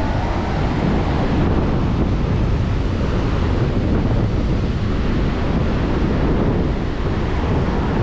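Ocean surf breaking and washing up a sandy beach in a steady rush, with wind buffeting the microphone.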